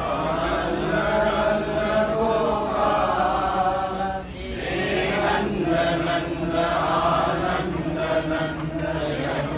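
A group of voices chanting a Hindu devotional chant together in long held notes, with a short pause for breath about four seconds in.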